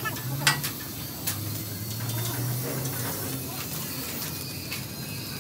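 A few short, sharp clicks or knocks over a steady low hum.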